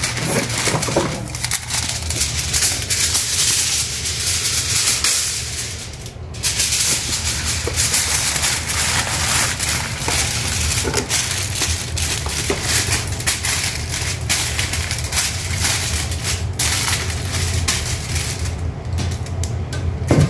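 Aluminium foil crinkling and crackling continuously as it is folded and pressed around a whole fish, with a brief lull about six seconds in.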